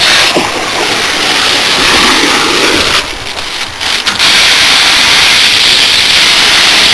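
A jet of water from a hose fed by a Davey Power Chief 105 centrifugal pump spraying against an air-conditioner condenser coil: a loud, steady hiss and spatter. It drops away briefly about three seconds in, then comes back strong.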